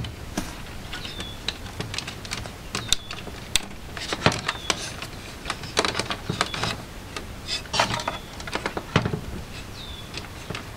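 Irregular small clicks and taps of hands handling a boombox's plastic cassette mechanism and the loose tape caught in it, a few followed by a brief faint squeak.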